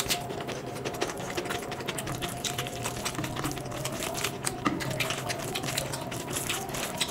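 Close-miked eating sounds: wet chewing with rapid small clicks, and fingers squishing rice into a yellow curry.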